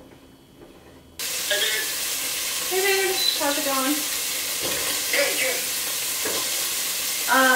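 Food sizzling and frying in olive oil in a pot, stirred with a wooden spoon. The loud frying hiss starts abruptly about a second in, and voices talk over it.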